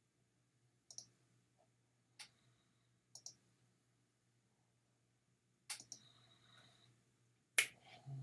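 Sharp clicks of a computer mouse button, single or doubled, coming one to two seconds apart as exam answers are clicked. The last two, near the end, are the loudest.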